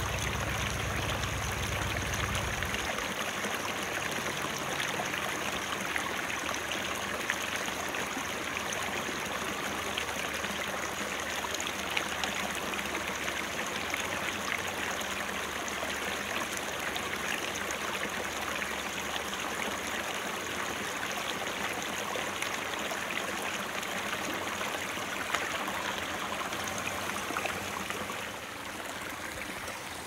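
Shallow creek trickling and babbling steadily over stones, with a low hum under it for the first few seconds; the water sound drops in level near the end.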